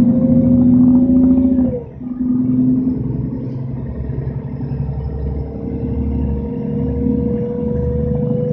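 Interior of a Mercedes-Benz O530 Citaro bus under way: its OM457 hLA straight-six diesel and ZF Ecomat automatic gearbox pull with a low rumble and a whine. About two seconds in the whine drops sharply and the sound dips briefly as the gearbox shifts up, then the whine climbs slowly again as the bus accelerates.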